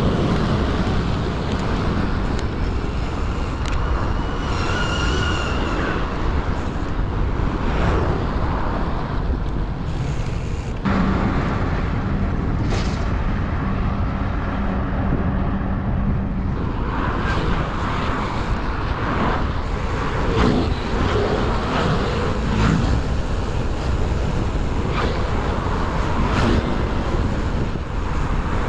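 Road traffic heard from a moving bicycle, cars and scooters passing, with wind rumbling on the microphone. An abrupt cut about 11 seconds in brings a steady low hum for several seconds.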